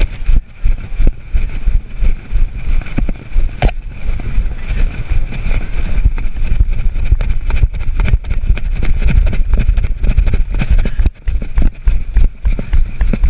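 Wind buffeting a body-worn camera's microphone in uneven gusts, with frequent rubbing knocks and rustles as the camera moves on the wearer.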